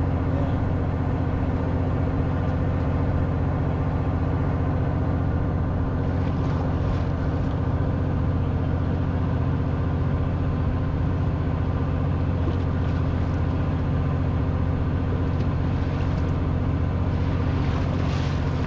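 Fishing boat's engine running steadily: a constant low hum with a few held low tones.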